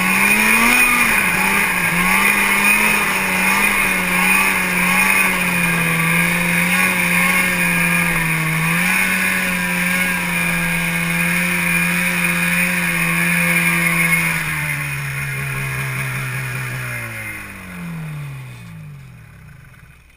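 Snowmobile engine running at low speed with small throttle changes. Near the end the note drops and glides steeply down as the engine winds down and shuts off.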